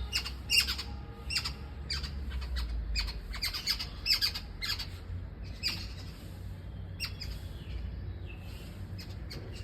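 Birds calling with short, sharp calls in irregular clusters, several a second at times, thinning out over the last few seconds.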